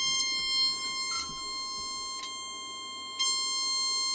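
Steady 1 kHz test tone from an ESP32's built-in DAC, a cosine wave played through a small amplifier and a small round speaker. Its loudness steps down about a second in and back up near the end, as the program cycles through its amplitude levels every second. A faint click comes about once a second.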